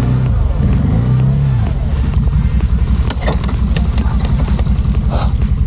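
Quad bike (Гепард ATV) engine idling while the rider rocks the machine to get its gearbox to engage a gear, which will not shift without rocking. The engine note rises and falls briefly about a second in, and a few sharp clicks come around three seconds in.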